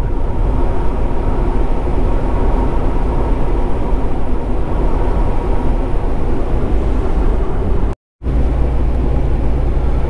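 Steady engine drone and tyre noise of a semi-truck heard from inside the cab while it cruises on a snowy highway. The sound drops out completely for a moment about eight seconds in, then the low rumble resumes.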